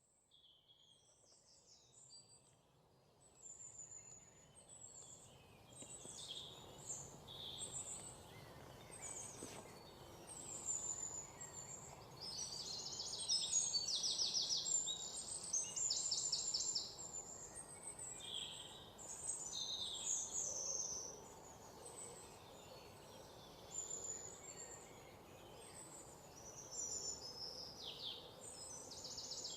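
Forest birds calling and singing: many short high chirps and rapid trills overlapping. The chorus fades in over the first few seconds and is busiest around the middle.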